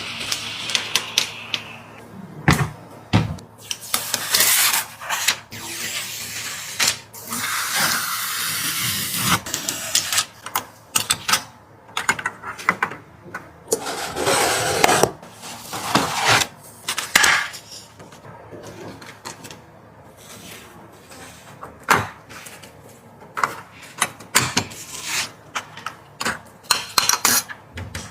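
Hands handling computer parts and their packaging: scattered sharp clicks and taps, with stretches of rustling, scraping noise about four, seven to nine, and fourteen seconds in.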